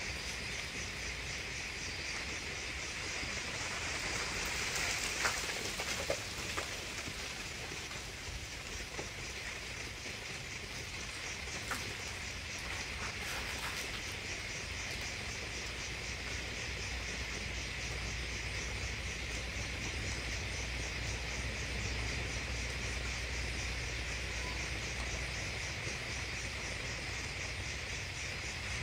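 Crickets and other night insects chirping steadily as a rapid, high, pulsing trill, with a few faint clicks about five to six seconds in and again near twelve seconds.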